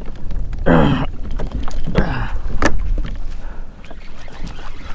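Water and wind noise around a small pedal kayak on open water, a steady low rumble. Two short pitched sounds stand out about a second and two seconds in.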